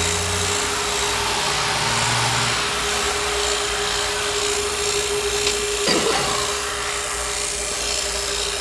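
Refrigeration vacuum pump running steadily, a constant hum with a hiss, with a short knock about six seconds in.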